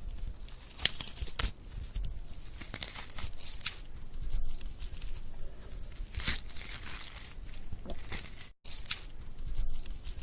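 Something being torn: a long run of ripping with sharp snaps along the way, broken by a short pause about eight and a half seconds in.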